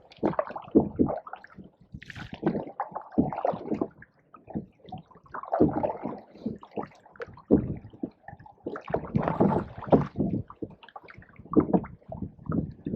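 Canoe paddles dipping and pulling through pond water, gurgling and splashing in uneven bursts every second or two.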